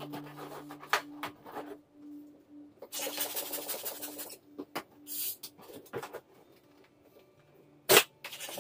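Latex balloons being handled and squeaked, and a hand pump pushing air into a balloon with a long airy hiss and then a shorter one. A single sharp knock comes near the end.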